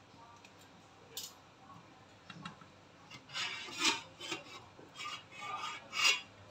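A cloth rubbing on a glass steamer lid, and the lid's steel rim scraping on the stainless-steel steamer as it is tilted up: a series of short rubbing strokes, the loudest about four and six seconds in.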